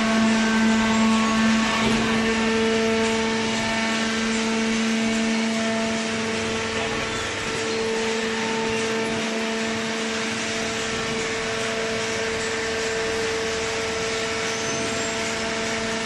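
Horizontal baler's electric motor and hydraulic pump running steadily: a constant machine hum with a hiss over it.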